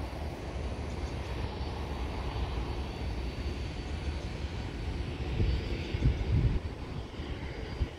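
Distant jet airliner on approach, its engines a steady rumbling roar. A few louder low bumps about six seconds in.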